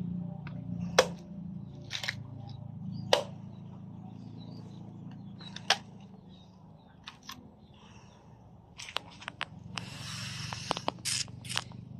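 Machete chopping into young green coconuts: sharp single chops about a second apart, then after a lull a quick run of knocks and a brief rustle of husks near the end, over a low steady hum.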